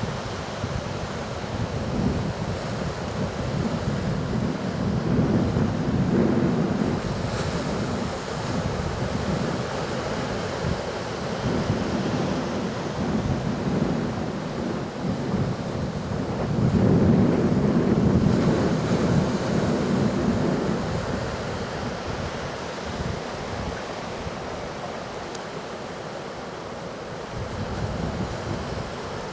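Hurricane-driven surf breaking, with strong wind blowing across the microphone. The wash of the waves swells louder twice, most of all about two-thirds of the way through.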